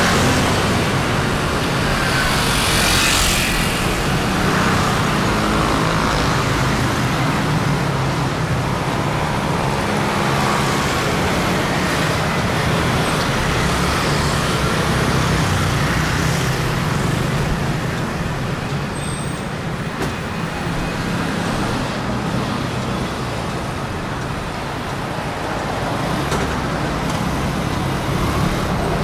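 City road traffic going by: a steady mix of engine rumble and tyre noise from passing cars and heavier vehicles, with a brief louder rush about three seconds in.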